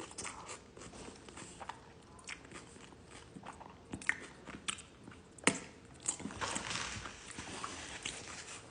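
A person chewing and biting food close to the microphone, with scattered sharp mouth clicks and crunches; the loudest comes about five and a half seconds in.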